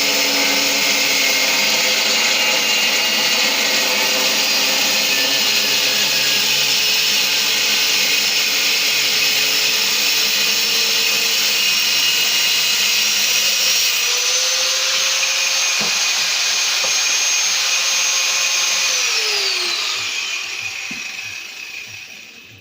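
Hand-held power cutting tool, such as an angle grinder with a cut-off disc, running steadily through a cut with a high whine. Near the end it is switched off and winds down, its pitch falling as it fades away.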